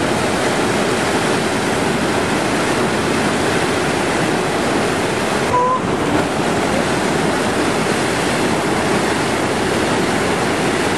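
Steady, loud rush of water running down a water park slide, an even hiss with no break.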